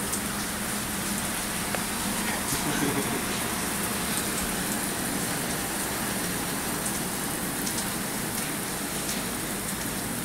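Heavy rain falling steadily, with scattered sharp ticks of drops landing close by.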